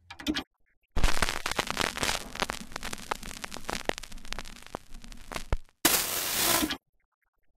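Old-film crackle sound effect: dense, irregular pops and clicks over a noisy hiss for about four and a half seconds. Then comes a burst of television static lasting about a second, which cuts off suddenly.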